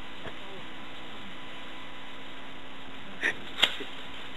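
Steady hiss and mains hum of a room recording, broken near the end by two short, sharp knocks about a third of a second apart, the second louder.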